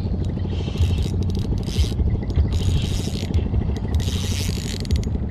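Okuma Epixor LS 30 spinning reel cranked steadily to retrieve a micro jig, a continuous gear whir with fast fine ticking, close to the chest-mounted camera. Short hissing swishes recur about every second and a half over it.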